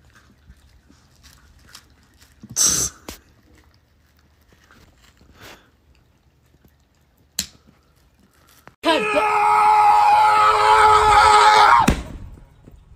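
Sharp clicks of nail clippers on a dog's claws. About nine seconds in, a long, loud, high scream starts and holds for about three seconds before cutting off suddenly.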